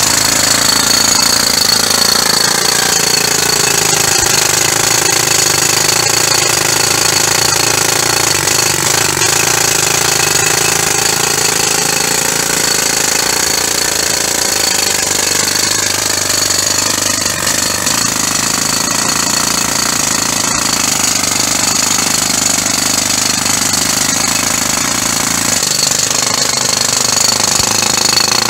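Pneumatic jackhammer (hose-fed paving breaker) chiselling into a concrete sidewalk, hammering continuously and loudly without a break.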